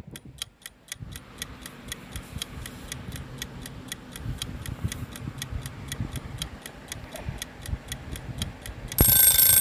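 Countdown-timer clock sound effect: steady ticking at about four ticks a second, then a loud alarm bell ringing near the end as the time runs out.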